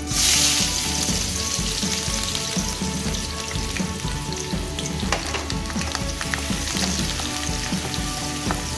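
Sliced onions going into hot oil in a pan: a sudden sizzle that settles into steady frying, with a few clicks of a spoon stirring.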